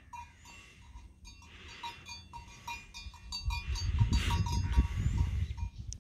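Outdoor ambience at a livestock pen: a run of short, high pings repeating at an uneven pace, with a low rumbling noise that sets in about three seconds in and grows louder.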